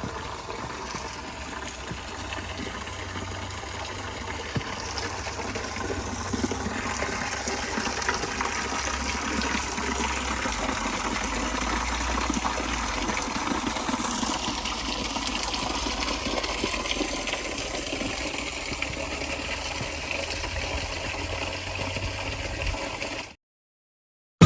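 Steady rush of flowing water, slowly growing louder and cutting off abruptly near the end.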